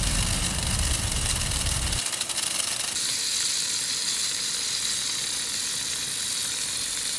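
Vintage Zeyssolff lawn sprinkler running, its water jet giving a steady hiss and spatter. A low rumble underlies the first two seconds, and the hiss turns brighter at about three seconds.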